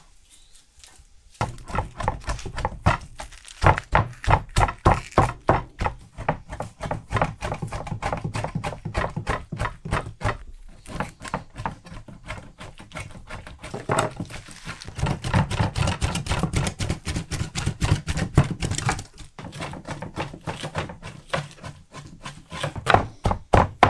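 Large cleaver chopping raw bull heart into mince on a wooden board: rapid, even strikes, several a second, starting about a second and a half in, with a couple of short pauses.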